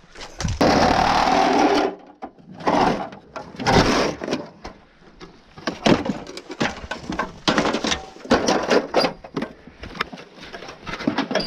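Knocks and clatter of wrecked RV parts being pulled apart, opening with a loud rattling noise about a second long.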